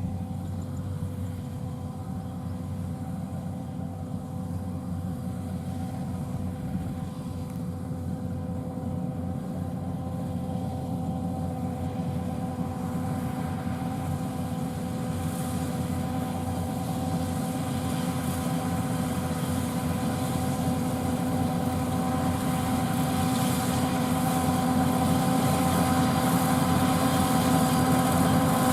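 Rice combine harvester's diesel engine and machinery running steadily, with a constant hum of several tones, growing gradually louder.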